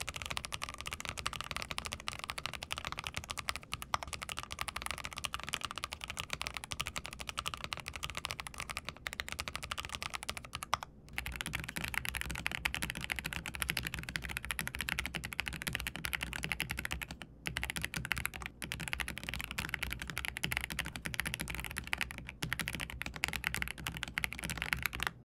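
Typing on an SPM PL87A mechanical keyboard with Sea Salt linear switches, a steady stream of keystrokes. About eleven seconds in, after a brief break, it changes to typing on an AULA Tarantula F87 mechanical keyboard with Yellow V3 switches, which has a brighter, clackier tone.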